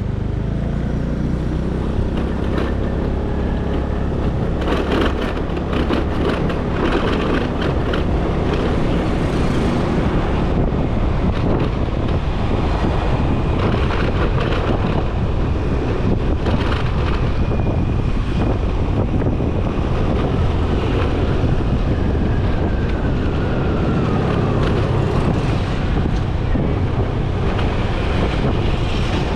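Motorcycle engine running while riding in traffic, with wind buffeting the microphone.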